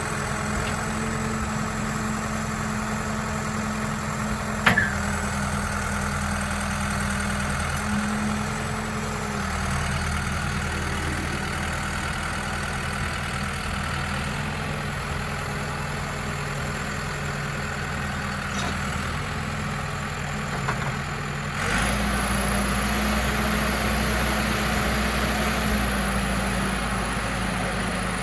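New Holland 575E backhoe's diesel engine running steadily with a faint high whine. About three quarters of the way through it speeds up and gets louder, and the whine rises in pitch. A single sharp click comes a few seconds in.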